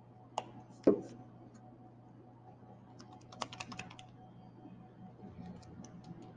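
Small plastic clicks and knocks from handling acrylic paint bottles at a plastic palette: two sharp knocks about half a second apart near the start, the second the loudest, a quick flurry of clicks about three seconds in, and a few faint ticks near the end.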